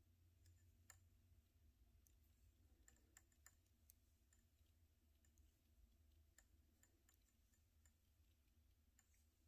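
Faint, irregular clicks of metal knitting needles tapping and sliding against each other while a row is knitted, over near-silent room tone.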